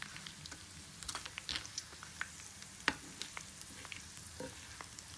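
Pieces of dried salted fish frying in shallow oil in a non-stick pan: a steady sizzle with scattered sharp crackles and pops, one louder pop about three seconds in. A metal spatula stirs and turns the fish in the pan.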